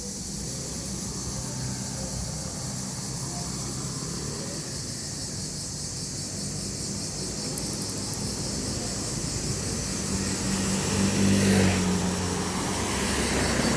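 A steady, high-pitched drone of insects calling from the trees, under the low rumble of road traffic. A vehicle passes and grows louder about three-quarters of the way through.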